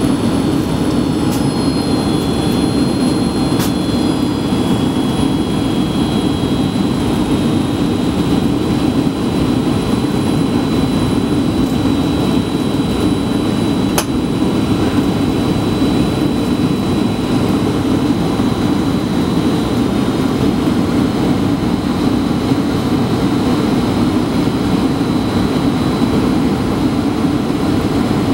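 Steady jet airliner noise heard from inside the passenger cabin during the descent to land: an even roar of engines and airflow, with a faint high whine riding on top.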